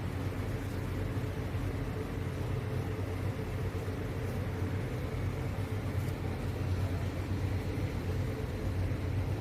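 URINGO foldable electric kettle heating water: a steady rumble with a low hum that cuts off abruptly at the end.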